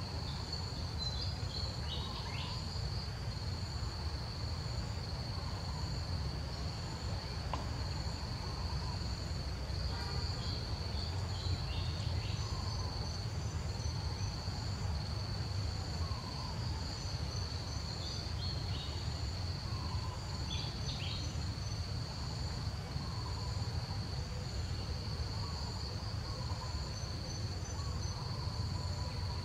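Steady high-pitched insect drone with a faintly pulsing upper note, over a low rumble. Short falling chirps break in four times.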